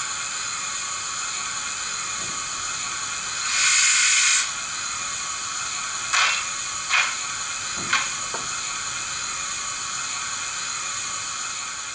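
Model steam locomotive sound from a Zimo DCC sound decoder with Mr Soundguy steam sound, played through a small 23 mm speaker. A steady steam hiss runs throughout, with a louder one-second blast of steam about three and a half seconds in. A few short, sharp puffs follow, roughly a second apart.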